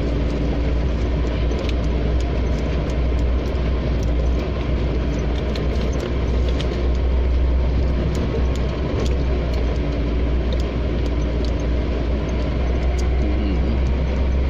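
An off-road 4x4 driving over rough ground: a steady low engine drone and running noise, with many small rattles and knocks scattered through it.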